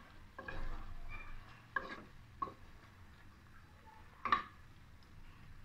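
Metal spoon stirring the chicken and masala in a pressure cooker, scraping along the bottom with several sharp clinks against the pot; the loudest clink comes just after four seconds in.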